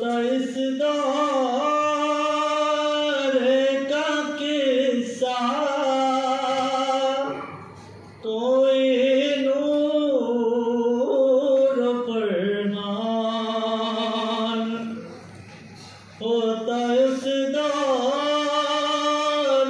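A man singing a naat, unaccompanied Islamic devotional chant, solo. He sings three long, held melodic phrases with wavering ornaments, each about seven seconds, separated by short breaths.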